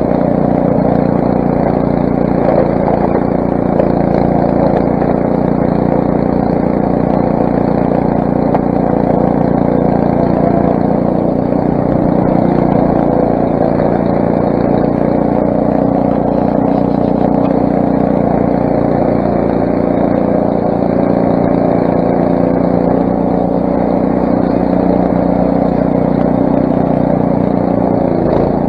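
Craftsman snowblower's 6 hp Briggs & Stratton engine running steadily at working speed.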